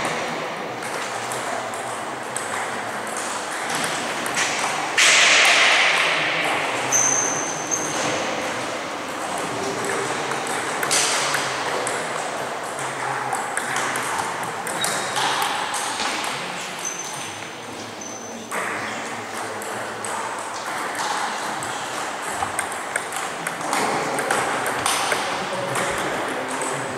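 Table tennis rallies: the celluloid/plastic ball clicking off rubber paddles and bouncing on the table in quick back-and-forth runs of sharp ticks, broken by pauses between points.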